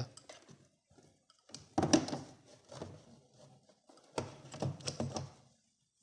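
An analog multimeter and its test leads being handled and set down against the washing machine's plastic base. There are knocks and clattering rattles in two bunches, one about two seconds in and one about four seconds in, with a few small ticks between.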